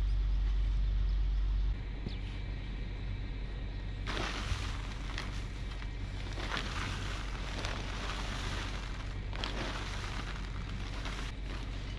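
Steel pitchfork digging into and tossing loose chopped silage: repeated short crunchy rustling strokes about every second or so. A low rumble fills the first couple of seconds and stops abruptly.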